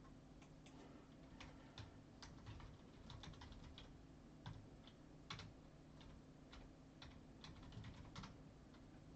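Faint, irregular typing on a computer keyboard: scattered light key clicks over a low steady hum.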